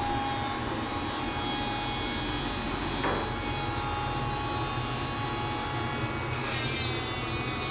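Cordless Dremel rotary tool running at a steady high whine while grinding a small dog's toenails, with a brief tap about three seconds in and the whine wavering near the end.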